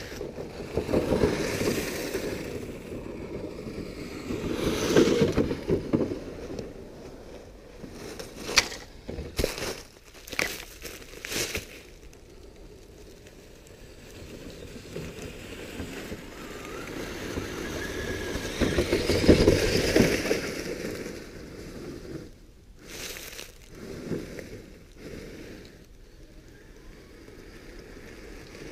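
Dry fallen leaves crunching and rustling in loud spells, with a few sharp crackles in between.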